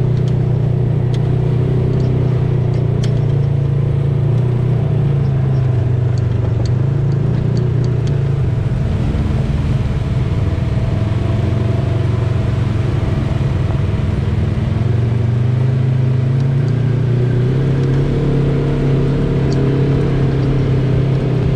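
Side-by-side UTV engine running steadily on the trail, its pitch dipping about halfway through and climbing again, with a few light clicks over it. The sound cuts off abruptly at the end.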